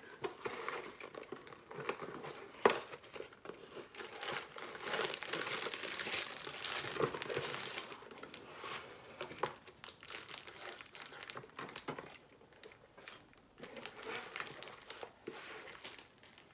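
A cardboard LEGO box being opened and its contents handled by hand: continuous crinkling and rustling of plastic parts bags and paper, with a few sharp clicks and taps.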